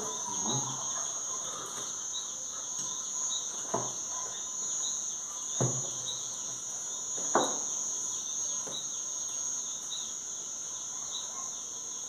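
Steady high-pitched chorus of crickets with a fainter chirp repeating through it. Three sharp clinks of forks against plates come about two seconds apart in the middle.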